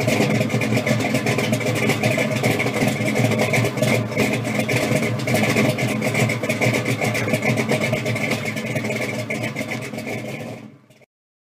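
Loud car engine running with a rough, pulsing exhaust, starting abruptly and fading out near the end.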